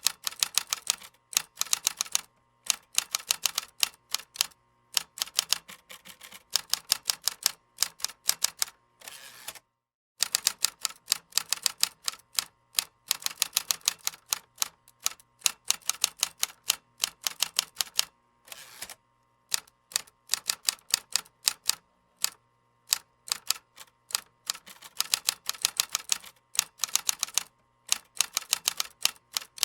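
Typing on a keyboard: rapid runs of key clicks in bursts with short pauses between them, and a brief silent break about ten seconds in.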